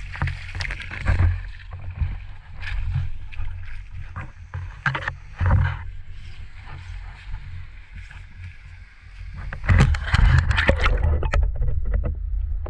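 Creek water lapping and knocking against a GoPro's waterproof housing at the waterline, over a steady low rumble with scattered knocks. About ten seconds in, a loud burst of splashing and handling noise as the camera goes under, after which the sound turns muffled and dull.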